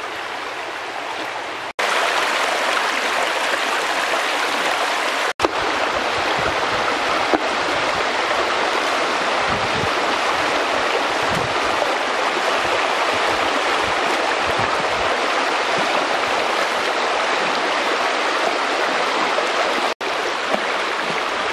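Rushing water of a shallow stream over stones, with splashing from people wading and grabbing in it. The sound drops out for an instant three times.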